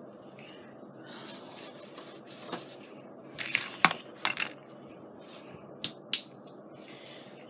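Craft supplies handled on a work table: paper rustling and light handling noises, with a few sharp clicks and taps, the loudest two about six seconds in.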